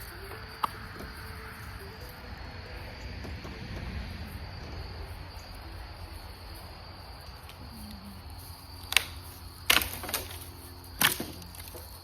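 Steady insect chirring in the background, then four sharp cracks about nine to eleven seconds in as dead branches, shaken loose by yanking a rope tied around a dead tree's trunk, break off and hit the ground.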